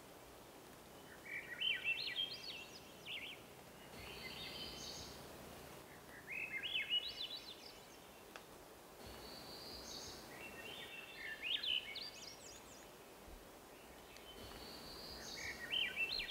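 A songbird singing short, jumbled phrases of quick high notes over and over, one every two to three seconds, some ending in a buzzy note, over the faint steady hiss of the woods.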